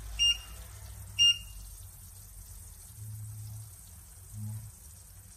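Two short, high electronic beeps about a second apart from an electric hob's touch controls as a setting is pressed, over faint frying of flour in oil in the pan.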